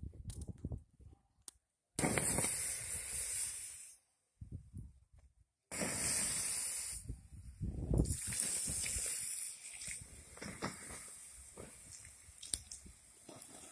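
Water poured onto the hot ash and embers of a wood fire, hissing and sizzling as it flashes to steam, with splashing. The hiss comes in loud bursts starting about two, six and eight seconds in, then dies down to a quieter sizzle and splashing near the end.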